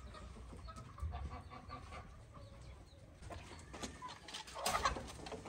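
Domestic chickens clucking in a pen, with a brief louder clatter a little before the end.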